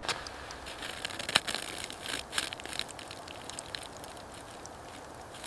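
Irregular crackling and rustling with scattered clicks, one sharp click about a second and a half in.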